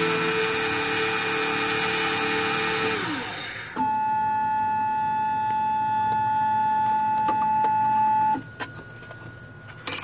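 Automatic key-cutting machine's milling spindle running steadily as it cuts a Jeep Patriot key blade, then winding down with a falling pitch about three seconds in. A second, higher steady motor whine from the machine follows for about four and a half seconds and cuts off suddenly, then a few light clicks as the cut key is unclamped.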